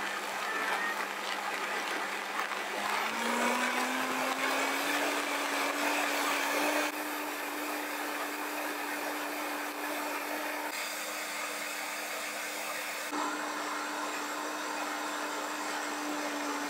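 Vitamix high-power blender running continuously on a thick green banana smoothie. The motor's pitch steps up about three to five seconds in as it goes to its top speed setting, then holds steady.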